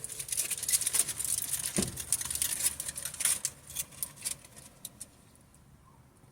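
Close, crisp crackling and crinkling as a taco is handled and eaten: a dense run of small sharp clicks that thins out after about four seconds.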